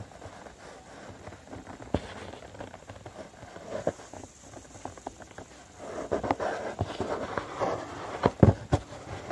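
A sheet of copy paper being folded and creased by hand against a tabletop: rustling and crinkling with scattered sharp clicks, busier from about six seconds in.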